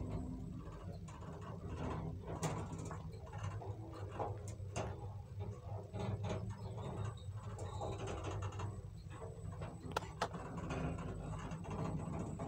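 Passenger lift car travelling between floors: a steady low hum of the ride with light rattles and ticks from the car. There are sharp clicks about two and a half seconds in and a close pair about ten seconds in.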